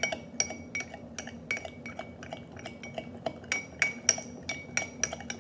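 Metal spoon clinking against the sides of a small glass bowl while stirring thick liquid soap with a little water: quick, repeated clinks, about three a second, each with a short glassy ring.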